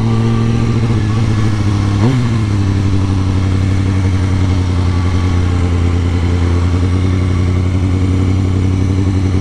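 Kawasaki ZX-6R 636 sportbike's inline-four engine running at low revs, with a quick throttle blip about two seconds in, then settling to a steady idle.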